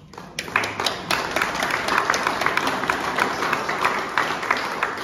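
Audience of a few dozen people applauding, many hands clapping at once; it starts a moment in, swells within the first second and tapers off near the end.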